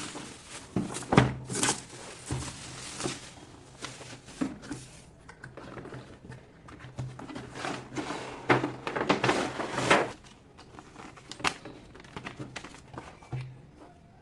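Packaging being handled by hand during an unboxing: irregular knocks, thumps and crinkling of cardboard and plastic, loudest about a second in and again around eight to ten seconds in.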